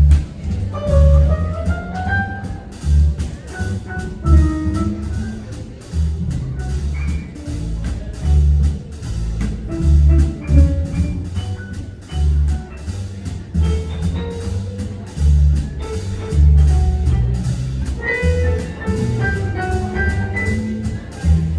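Band playing an instrumental passage of a jazzy crooner song: a pulsing bass line and steady drum beat under a wandering melody line, with no singing.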